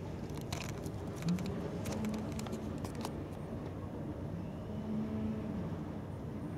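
A distant engine running steadily, its pitch rising and falling a few times, with a few light clicks in the first half.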